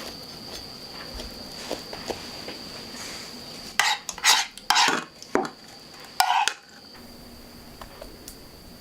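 Kitchenware handling: light clicks at first, then a flurry of about five loud clinks and clatters of utensils against dishes in the middle.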